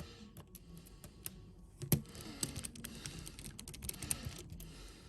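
Small irregular clicks and ticks of a precision Phillips screwdriver working a tiny screw out of an iPhone XR's internal bracket, with one louder click about two seconds in.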